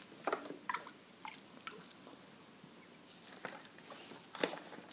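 Textile-dye bath being stirred with a wooden stick in a plastic bucket: faint, scattered sloshes of the liquid and small knocks of the stick.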